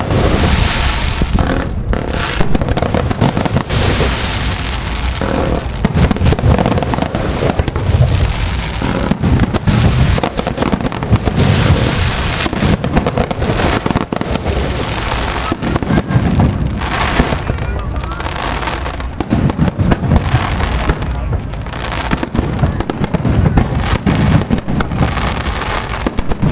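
Fireworks display: a dense, unbroken barrage of shell bursts, booms and crackles, with music playing underneath.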